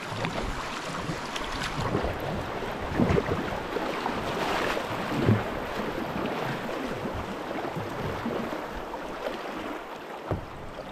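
Fast tidal water rushing and splashing around a kayak as the incoming tide floods a tidal rapid, with a few louder splashes along the way.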